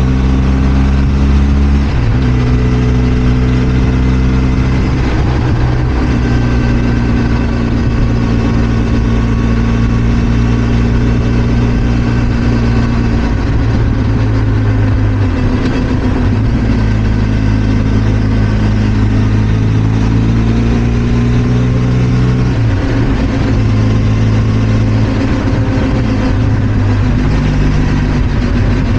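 Benelli TRK 502 X's 500 cc parallel-twin engine running under way, its note holding steady for stretches and stepping down or up in pitch several times as the revs change.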